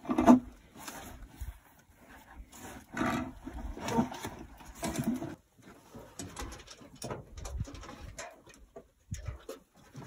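Rope and climbing gear clicking and knocking against the shaft timbers as a climber rappels down a timber-lined mine shaft, with a few short low calls in the first half, the loudest at the very start.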